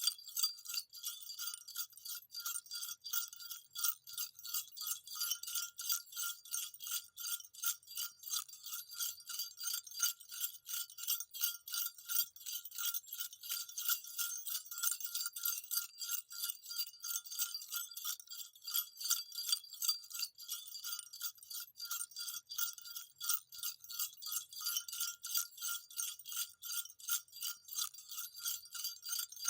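Small jingle bells shaken without a break in quick, uneven strokes, a high bright tinkling over a steady ring.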